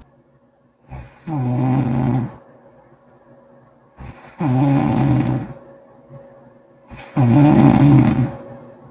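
A person snoring: three snores about three seconds apart, each about a second long and each starting with a short click.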